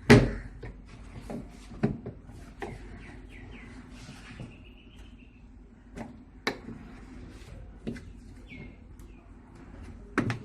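Scattered sharp clicks and knocks as the spinner cover of a semi-automatic washing machine is pressed into place and locked; the loudest knock comes right at the start.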